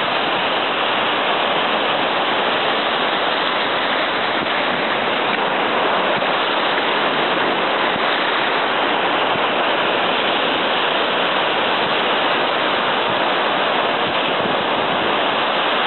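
Ocean surf breaking and washing up a sandy beach: a steady, unbroken rushing hiss.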